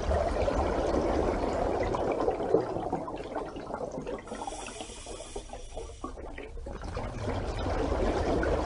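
Water sound effect: a steady rush of moving water that dips in level around the middle and swells again near the end.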